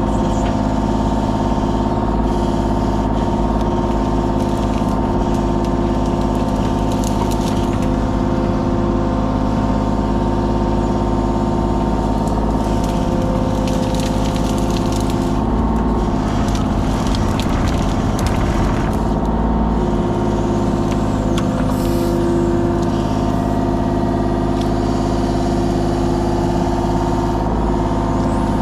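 Kubota KX033 mini excavator's diesel engine running at a steady throttle, with scattered crackles at times.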